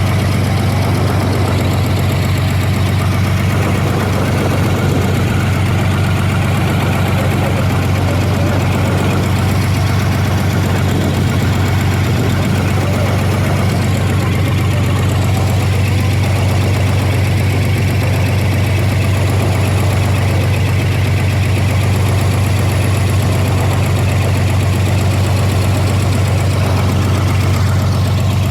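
Fishing boat's engine running steadily with a deep, even hum.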